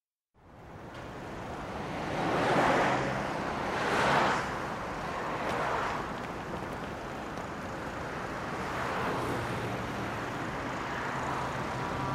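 A rushing, wind-like noise that fades in, swells twice in the first few seconds, then runs on steadily over a faint low hum.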